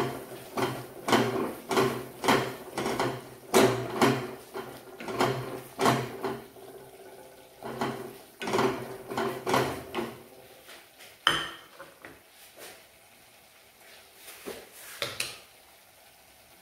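Wooden spatula stirring and scraping ground spices through a frying paste in a stainless steel kadai, in repeated strokes about every half second for some ten seconds. A single sharp knock comes a little after eleven seconds, then a few more strokes.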